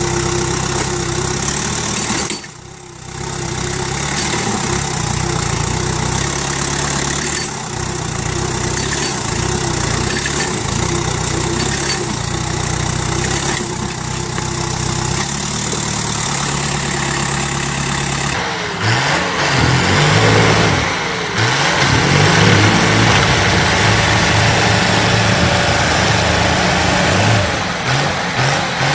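Yanmar FX335 compact tractor's diesel engine running under load as it pushes through a small tree. Then a second tractor's engine revs, its pitch rising and falling.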